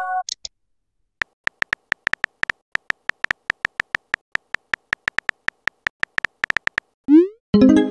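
Chat-app keyboard typing sound effect: a quick run of short synthetic key clicks, about five a second, as a message is typed out letter by letter. Near the end a rising whoosh and a short chime sound as the message is sent.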